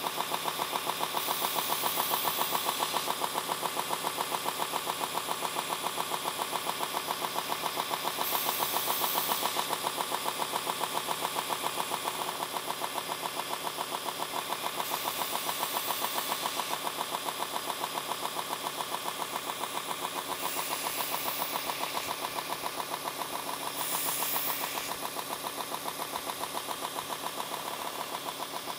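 Belt grinder running with a 220-grit belt while a knife edge is sharpened: a steady motor hum with a regular pulse. About five times, a higher hiss lasting a second or two comes as the blade is passed across the belt.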